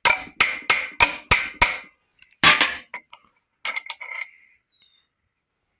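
Metal tapping and clinking on engine parts: six quick ringing strikes in about two seconds, a heavier strike, then a short clatter of metal.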